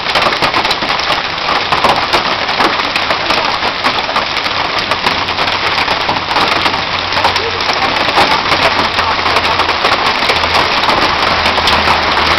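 Hailstones and heavy rain pelting down in a dense, steady clatter of many small hard hits. A low rumble joins in near the end.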